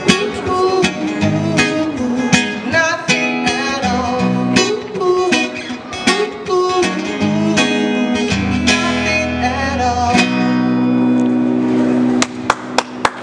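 A man singing live over a strummed steel-string acoustic guitar, his voice sliding through pitch-bending lines. About ten seconds in, a note and chord are held, then the guitar breaks into sharp, quick strums near the end.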